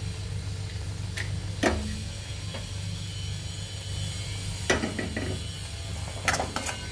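Cashew nuts frying in ghee in a small nonstick pan, with a faint sizzle over a steady low hum. A few light clicks and knocks come as the pan is shifted on the gas burner's grate, the clearest near the middle and late on.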